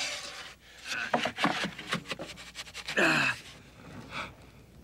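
Wooden signboard knocking and scraping against its wooden post as it is wrenched around by hand, with a short creak about three seconds in.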